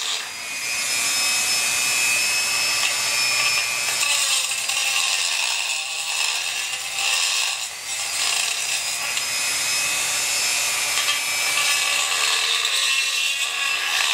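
Dremel 4000 rotary tool with a porting bit grinding the ports of a Chinese 80cc two-stroke bicycle engine cylinder to port-match it: a steady high whine over the scratchy grind of the bit on metal, dipping briefly twice as the bit is eased off.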